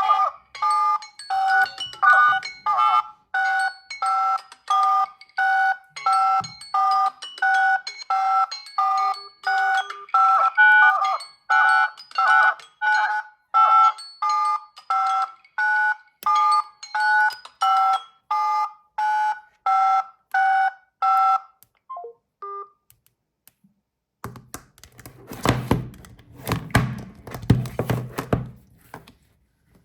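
A smartphone ringing with a repeating electronic two-note tone, about two notes a second, that stops about two-thirds of the way in. After a short silence comes a burst of clicking and tapping.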